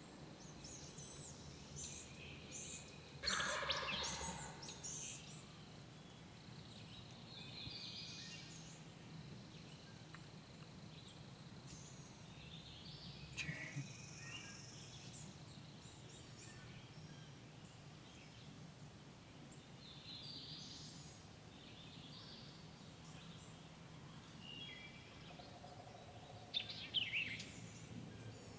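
Wild turkey gobbler gobbling about three seconds in, the loudest sound here, with shorter sharp sounds midway and near the end. Songbirds chirp faintly throughout.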